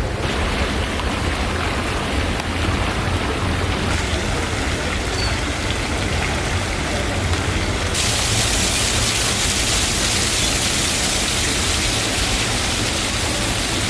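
Steady rush of falling water, a waterfall in an outdoor garden pool, growing hissier about four seconds in and again about eight seconds in.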